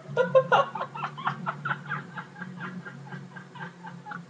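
A man laughing in a quick run of short, breathy bursts, several a second, dying down in the second half, over a steady low hum.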